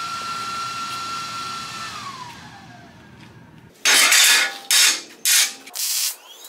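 A small power tool motor whines at a steady pitch, then winds down with a falling pitch about two seconds in. From about four seconds in come four short, loud bursts of MIG welding crackle: tack welds on a steel flywheel.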